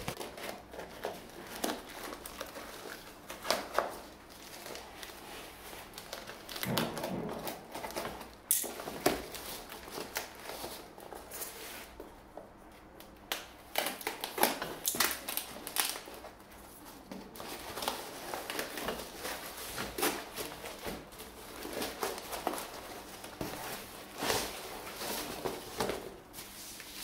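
Plastic packing tape and cardboard being torn and peeled by hand off a long parcel, in uneven rips and crinkles, some sharper than others.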